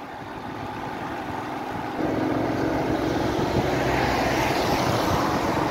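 Car driving on a rain-wet road: steady engine hum with the hiss of tyres on wet asphalt, getting louder about two seconds in.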